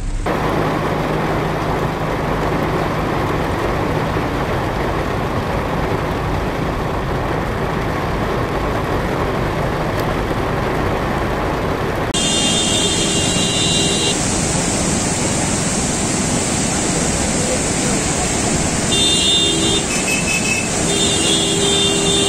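Steady rushing noise of heavy rain and traffic on a wet road, with a low engine hum. About halfway it switches to a brighter rush of rain and floodwater, and a vehicle horn sounds in three short spells.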